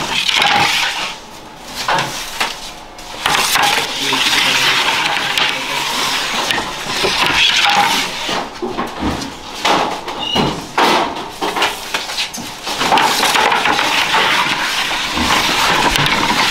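Long-handled baker's peel scraping and knocking against the brick hearth and iron mouth of a wood-fired bread oven, a rough, near-continuous scraping with sharp clicks and brief pauses.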